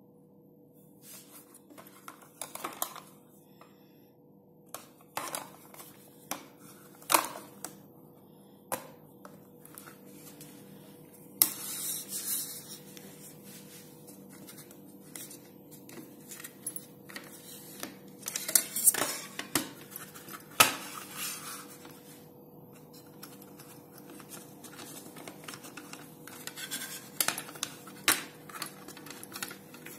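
A plastic drill-bit case being opened and handled, with high-speed steel twist drill bits clicking and scraping against their plastic holder: a scattered series of sharp clicks and taps.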